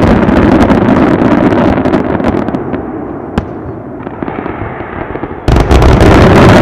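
Aerial fireworks display: a dense run of shell bursts and crackling that dies away after a couple of seconds, with one sharp lone bang near the middle. A sudden loud new salvo of bursts starts about five and a half seconds in.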